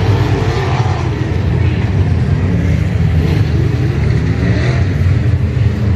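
A pack of IMCA Modified dirt-track race cars' V8 engines running around the oval, the pitch rising and falling as the cars accelerate and lift.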